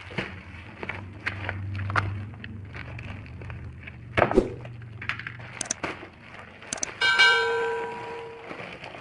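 Parcel packaging being handled, with small clicks and a sharp knock about four seconds in, under a low hum in the first half. About seven seconds in a metal part clangs and rings, fading over about a second and a half.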